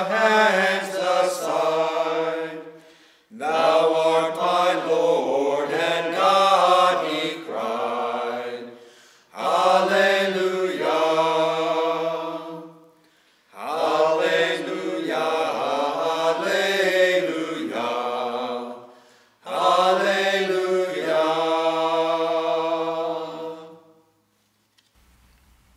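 Voices singing a hymn verse that closes on "Alleluia", in long phrases with short breaks between them. The singing stops a little before the end.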